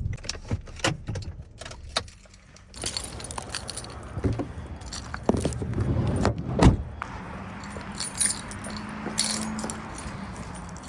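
Keys jangling among a run of clicks and knocks, with one heavy thump a little past the middle.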